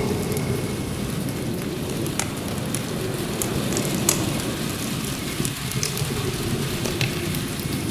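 Steady rain mixed with a crackling log fire: a dense, even rushing hiss with scattered sharp pops and ticks.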